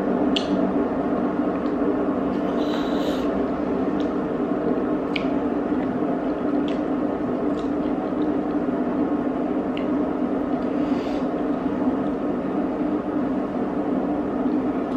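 Wet eating sounds of noodle soup being chewed and slurped, with a few short clicks of wooden chopsticks against the ceramic bowl, over a steady low hum.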